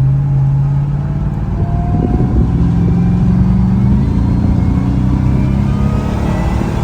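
Ford Raptor R's supercharged 5.2-litre V8 accelerating on the road, its engine note shifting in pitch about two and four seconds in. A faint high supercharger whine climbs along with it, which the owner credits to the Air Raid intake filter replacing the stock paper filter.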